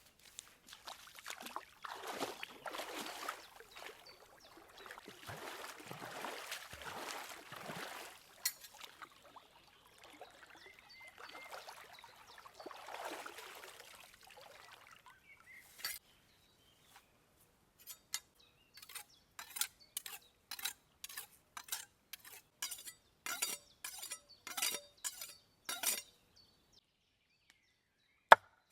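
Liquid being poured in uneven surges for about fifteen seconds while making cranberry sauce, followed by a run of short clinks, about one or two a second. A single sharp knock near the end is the loudest sound.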